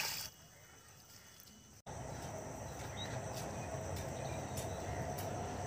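Brief water splashing as a metal pot is dipped into a pond, then, after a sudden cut about two seconds in, a steady outdoor hiss with a faint held tone and light ticks at an uneven pace.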